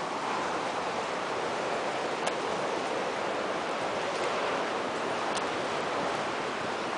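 Steady rush of surf, with a couple of faint sharp clicks.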